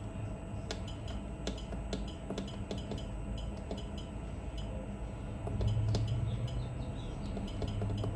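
Repeated short clicks, a few a second, as the temperature button on a Green Mountain Grills Daniel Boone pellet grill's controller is pressed over and over to raise the set point to 250 degrees. Under them runs a low hum that grows louder about halfway through.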